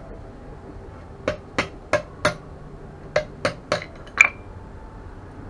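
Hammer blows on hot steel on an anvil while forging a leaf: eight evenly paced strikes, four, a short pause, then three more, and a final louder blow that rings briefly.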